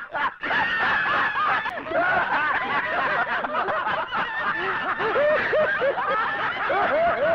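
Several men laughing hard together, many overlapping peals of laughter.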